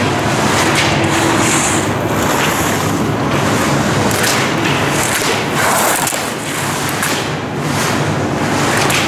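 Skis sliding and edging over hard-packed snow: a steady rushing scrape, with several sharper scrapes as the edges bite on the turns.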